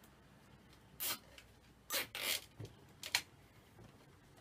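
Plastic cable tie being pulled tight through a plastic bread crate, its ratchet zipping in four short rasps: one about a second in, two close together around two seconds, and a sharper one just after three seconds.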